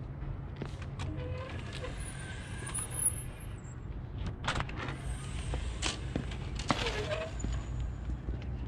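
Street ambience: a steady low rumble of traffic, with several sharp clicks and knocks scattered through it.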